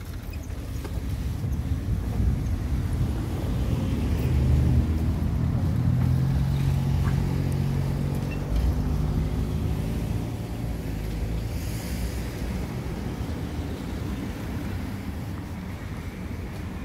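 A motor vehicle passing on the street: a low engine hum that swells over the first few seconds, is loudest about five seconds in, then fades slowly.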